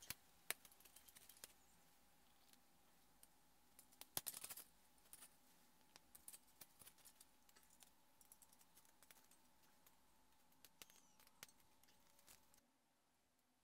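Near silence with faint, scattered clicks and taps, a short cluster about four seconds in: small screws and a hex key being handled as an aluminium angle bracket is bolted to an aluminium extrusion.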